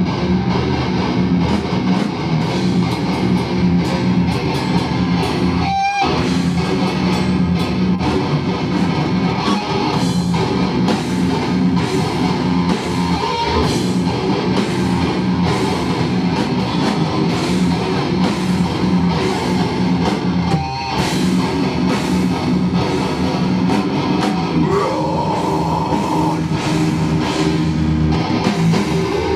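Live heavy band playing loud: distorted electric guitars over a pounding drum kit, without a bass guitar. The band stops for a split second about six seconds in and again around twenty-one seconds in.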